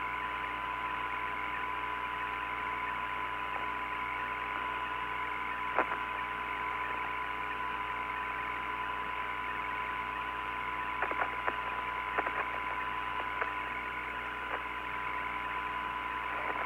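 Open radio channel of the Apollo 17 air-to-ground voice loop between transmissions: a steady, muffled hiss with hum and a faint steady tone, broken by a few faint clicks.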